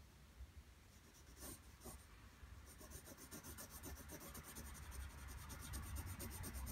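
Pencil scratching on drawing paper in shading strokes: faint and scattered at first, then from about a third of the way in a fast, even back-and-forth hatching rhythm that slowly gets louder.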